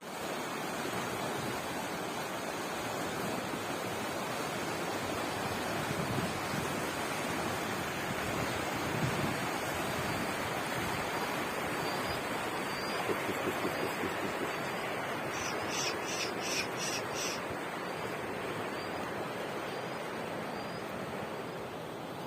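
Steady rushing wind noise on the microphone outdoors in falling snow. About two-thirds of the way in there is a quick run of about six high squeaks.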